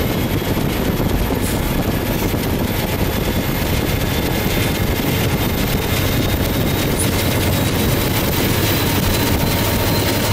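Norfolk Southern GE Dash 8 and EMD SD70 diesel locomotives moving past close by: a steady, loud diesel engine rumble with a low hum, mixed with running noise from the train.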